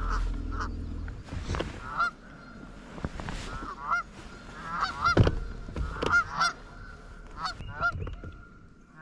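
Geese honking over and over, many short calls overlapping in a noisy run, with a single thump about five seconds in.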